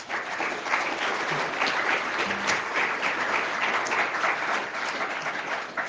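Audience applauding, many hands clapping steadily, fading away near the end.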